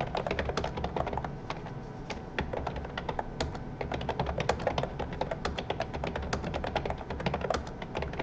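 Typing on a computer keyboard: quick key clicks several a second, with a couple of brief pauses.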